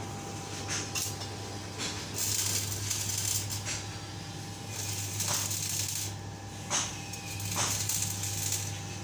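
Electric arc welding: a crackling, hissing arc in three spells with a few sharp clicks between, over a steady low hum.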